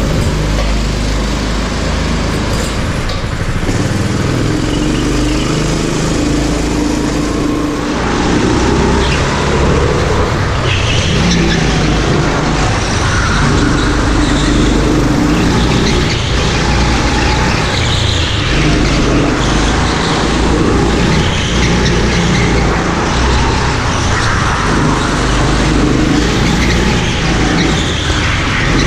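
Rental go-kart engine running at speed, its pitch rising and falling as the kart accelerates out of and slows into corners. It gets louder about eight seconds in.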